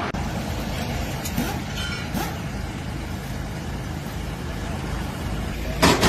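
Heavy truck's diesel engine idling steadily, a low rumble, with a few faint clicks and rattles about one to two seconds in.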